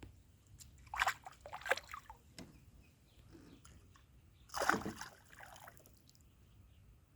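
Water splashing and sloshing in two short bouts, one about a second in and a louder one about four and a half seconds in.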